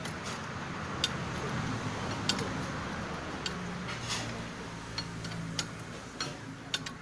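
Irregular sharp clicks and light taps, about a dozen, unevenly spaced over a steady background noise, as of tools or small metal parts being handled.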